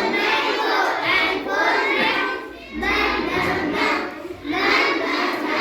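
A group of children chanting together in unison, repeating a phonics drill for the letter M.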